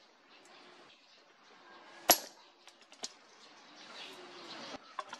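A single sharp hammer blow on the leaf-spring steel machete blank lying on a steel post anvil, about two seconds in, with a brief high metallic ring. A few lighter metal ticks follow.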